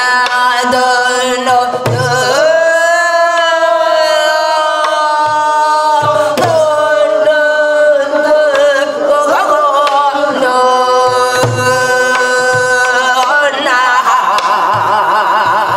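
A woman sings Korean gueum, wordless vocal mouth-music in the gutgeori rhythm, in long held notes that waver and slide between pitches. A barrel drum (buk) gives low strokes here and there beneath the voice.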